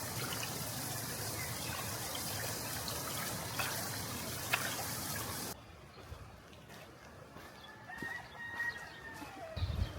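Steady rush of flowing stream water that cuts off abruptly about halfway through. A quieter stretch follows in which a rooster crows once near the end, the call falling away at its close.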